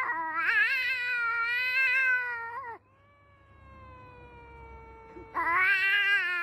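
A black-and-white cat yowling in long, drawn-out, wavering calls. A loud call lasts nearly three seconds, then comes a softer call that slowly falls in pitch, then another loud wavering yowl near the end.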